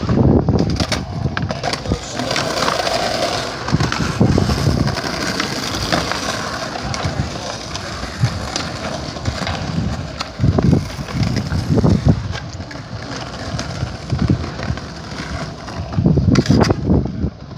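Skateboard wheels rolling on pavement, with sharp clacks of the board hitting the ground several times.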